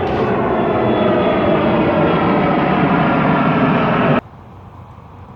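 Airplane engines running loud as an aircraft passes close by, a steady roar with a whining tone in it that cuts off suddenly about four seconds in.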